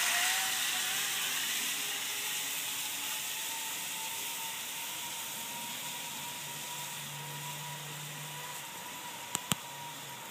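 Zip line trolley pulley running along the cable: a steady whirring whine that settles in pitch in the first half second, then slowly fades as the rider travels away down the line. Two sharp clicks about nine seconds in.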